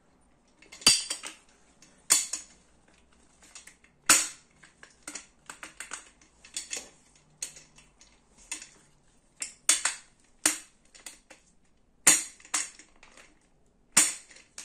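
Casters being snapped into the chrome five-star base of a Kring Fit office chair: a string of sharp plastic clacks and metal knocks, irregular and a second or two apart, as each caster stem is pressed home and the chrome base is turned and handled.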